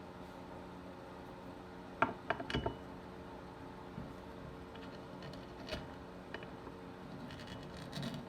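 A quick cluster of sharp clicks and knocks about two seconds in, then a few fainter ticks, as small metal tools and parts are handled on a workbench, over a steady electrical hum.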